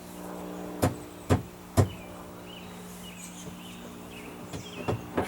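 Sharp clicks and knocks, three in the first two seconds and a quick cluster of three near the end, from a boat's rotary steering helm as the wheel is turned clockwise with the steering cable being fed in; the cable is not catching in the helm gear. A steady low hum runs underneath.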